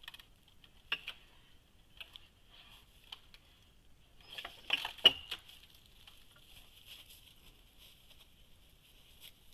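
A few sharp knocks and snaps over a steady high chirring of insects, with a quick cluster of them about four to five seconds in, the loudest just after the fifth second.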